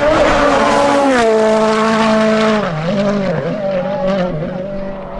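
Ford Fiesta RS WRC rally car's turbocharged four-cylinder engine running hard. Its note steps down twice as the car brakes and changes down, then wavers up and down as the driver works the throttle.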